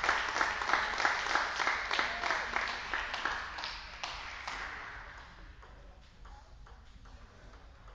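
Spectators clapping between rallies, the applause dying away over about five seconds.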